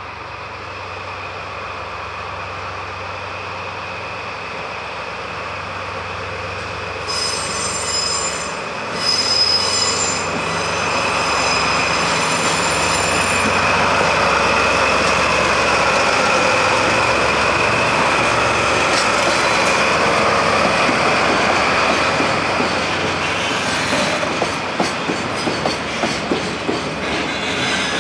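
A train rolling along the rails and growing louder, with high-pitched wheel squeal about a quarter of the way in, then a rhythmic clatter of wheels over rail joints near the end.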